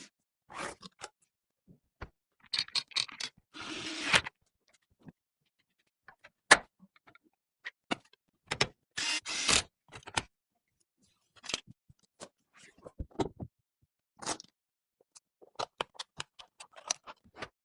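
Scattered clicks, taps and short scrapes of computer parts being handled and fitted together, with one sharp click a little past the middle.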